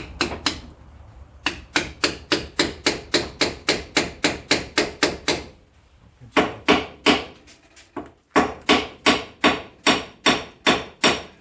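Hammer blows, metal on metal, on a tool wedged into the pinch-bolt split of a 2006 Ford Escape's steering knuckle, about three strikes a second in two long runs with a short pause between. The blows spread the knuckle to free a lower ball joint stud that is stuck fast.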